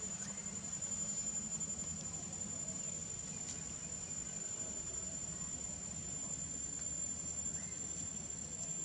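Insects trilling in one steady high-pitched tone, over a low steady background hum.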